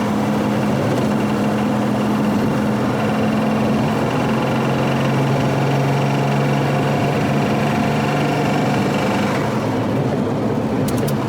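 Volvo 164's B30 straight-six engine running steadily as the car is driven, its note dropping to a lower pitch about halfway through.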